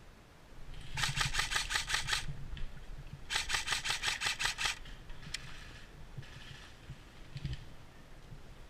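Airsoft electric gun (AEG) firing two bursts of rapid shots, each about a second long, followed by fainter, shorter bursts of shots.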